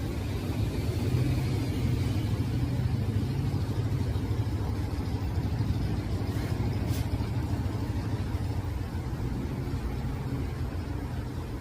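Steady low rumble of a motor vehicle, like an idling car engine, with a faint short tick about seven seconds in.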